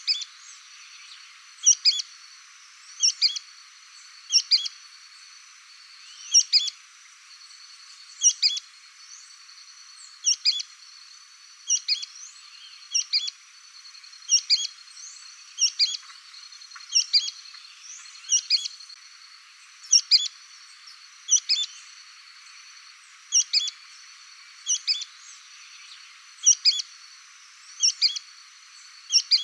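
Petrim (sooty-fronted spinetail) repeating its sharp two-note "pe-trim" call about every one and a half seconds, over a faint steady high-pitched hum.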